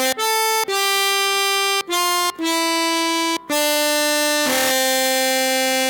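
Pianika (melodica), a free-reed keyboard wind instrument, playing the telolet basuri bus-horn tune: a string of loud, held reedy notes with short breaks between them, stepping mostly downward in pitch and ending on a long low note.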